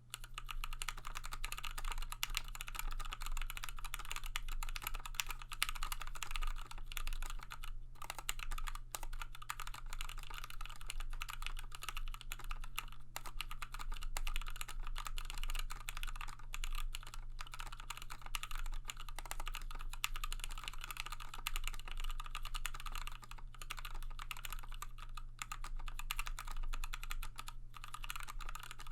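Fast, continuous typing at around 85–90 words a minute on a Tofu65 mechanical keyboard with an aluminium case and plate, PBT keycaps and lubed Milky Gateron Yellow linear switches. The keys clatter densely, with a few brief pauses.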